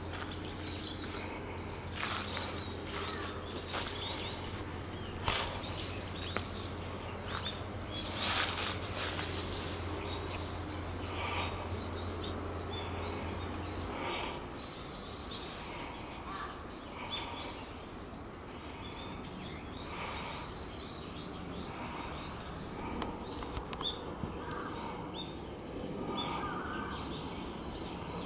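Small birds chirping and calling repeatedly in short, high notes at a bathing spot, with a brief rushing noise about eight seconds in. A low steady hum underneath stops about halfway through.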